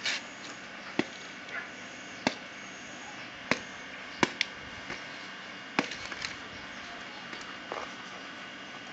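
Irregular sharp clicks and taps, about eight of them, from hands and beetles being moved among plastic and metal containers, over a steady background hiss.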